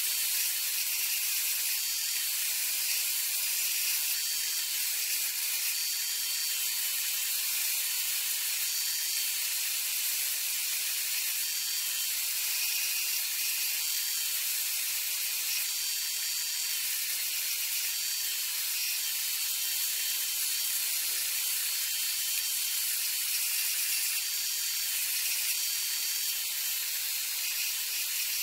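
Benchtop belt and disc sander running, with a drilled pine block pressed onto its moving belt at times: a steady high hiss.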